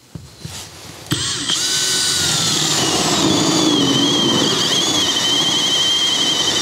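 Makita 18V cordless drill running a hole saw through drywall, cutting the hole for a wall-socket box. It starts about a second in and runs steadily under load, its motor whine dropping a little in pitch as the saw bites, then wavering.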